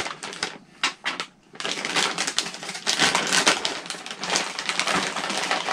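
Plastic kit parts bag being torn open and handled: a few scattered clicks and rustles, then dense, continuous crinkling from about a second and a half in.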